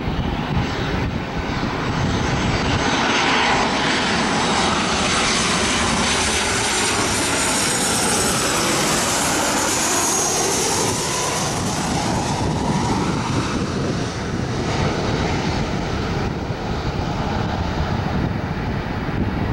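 Boeing 737-700 jet on final approach with its two CFM56-7B turbofans running: a steady rumble and hiss with a high fan whine that grows loudest about halfway through as the aircraft passes close, then eases off as it heads for touchdown.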